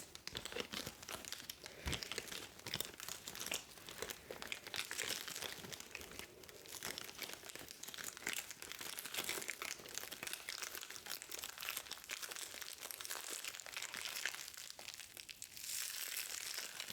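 Plastic packaging wrap crinkling as it is handled and pulled off, with dense, irregular crackles.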